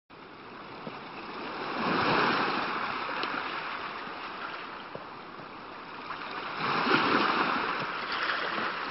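Sea waves rushing in, the noise swelling to a peak about two seconds in and again about seven seconds in.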